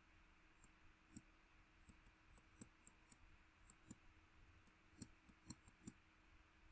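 Near silence with faint, irregular clicks and taps of handwriting being entered on screen with a pen input device, about two or three a second.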